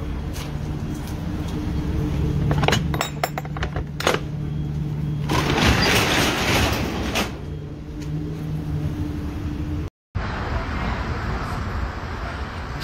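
A vehicle engine idling with a steady low hum, broken by a quick cluster of clicks and knocks and then a couple of seconds of hissing noise. After a sudden cut, a noisier street background follows.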